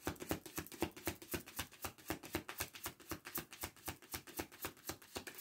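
Deck of tarot cards being shuffled by hand, a quick even run of soft card slaps, about eight a second, that stops near the end.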